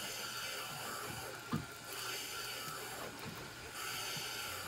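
Steady low hiss of wind and sea around a small boat, with a few faint soft knocks, the plainest about a second and a half in, as a multiplier fishing reel is wound in against a heavy weight.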